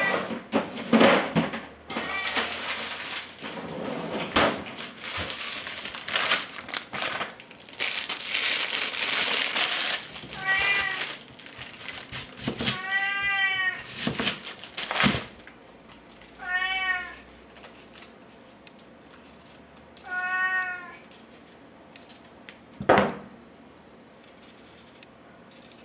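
Domestic cat meowing about half a dozen times, each meow rising and falling in pitch, a few seconds apart. Clattering, knocking and rustling fill the first half, and there is a single sharp knock near the end.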